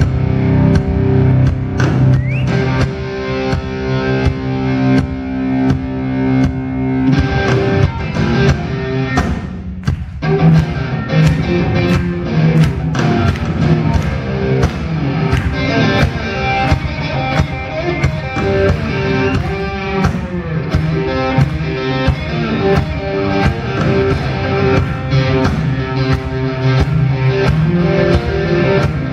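Live rock band playing: electric guitar, bass guitar and drum kit together, with a brief drop in the music about ten seconds in before the band comes back in.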